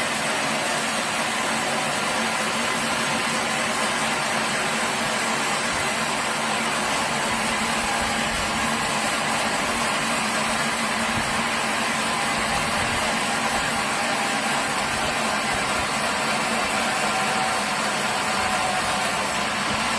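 Sawmill machinery running steadily: a constant, unchanging mechanical drone.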